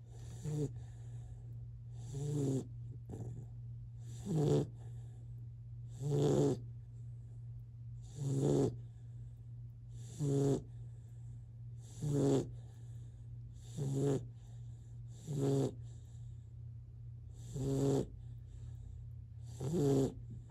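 Great Dane puppy snoring in its sleep, a regular rasping snore roughly every two seconds, each drawn breath buzzing like a buzzsaw. A steady low hum runs underneath.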